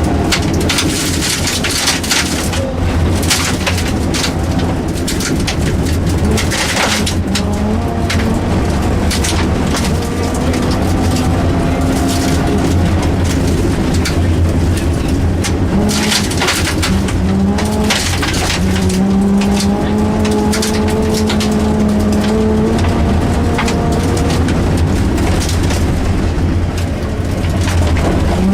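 Rally car engine at full effort, revving up and dropping back again and again through the gear changes, under a constant heavy rumble. Frequent sharp crackles and knocks run through it, typical of gravel and stones hitting the car's underside on a forest stage.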